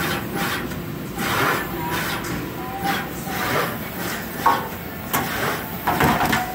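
Philips Topaz SMT pick-and-place machine running, its placement head and gantry moving with a whirring, hissing swell about once a second.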